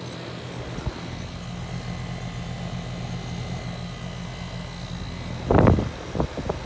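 Goodman GSX14 air-conditioner condensing unit running after start-up, its compressor and condenser fan giving a steady hum. Near the end, gusts of air from the fan buffet the microphone with loud rumbling bursts.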